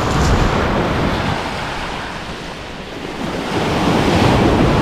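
Sea waves washing onto the beach: a steady roar of surf that eases in the middle and swells again near the end as the next wave breaks.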